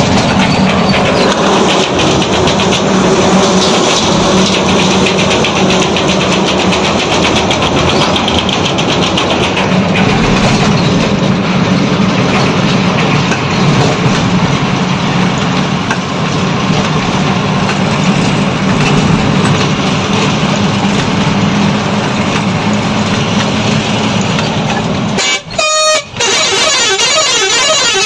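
Steady drone of a truck's engine with road and wind noise, heard from inside the cab while driving at about 60 km/h. The sound cuts out briefly twice near the end.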